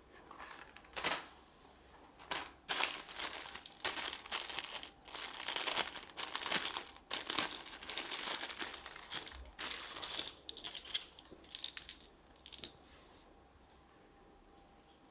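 Thin clear plastic bag crinkling in bursts as it is handled and opened, with sparser light clicks and rustles toward the end.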